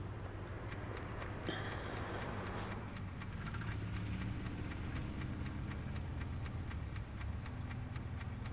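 Clock ticking steadily and quickly, about four ticks a second, over a low steady hum.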